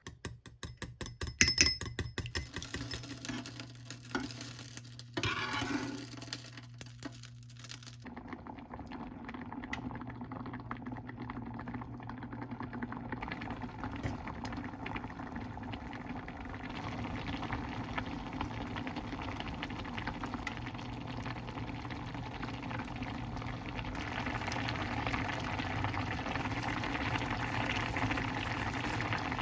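A utensil clicks rapidly against a bowl, stirring in a freshly cracked egg, for the first few seconds. After that comes a steady bubbling of the egg-and-tofu mixture cooking, growing a little louder toward the end.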